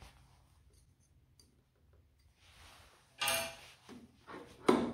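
Handling noises as a servo motor's plastic control box is worked into its metal mounting bracket: a short scraping rattle about three seconds in and a sharp click near the end.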